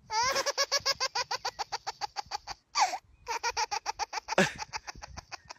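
A baby boy laughing at a dandelion clock blown at him. The laugh comes in a long run of quick, rhythmic bursts, then two shorter runs.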